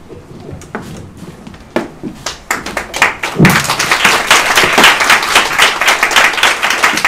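Audience applauding: a few scattered claps at first, building into full, dense applause about three seconds in.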